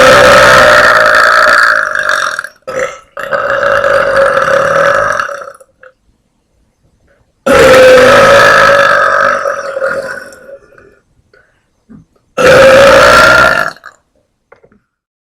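A woman's very loud, deliberate burps, made by swallowing air: four long belches at a steady pitch. Each lasts one to three seconds, the first two come almost back to back, and the last is the shortest.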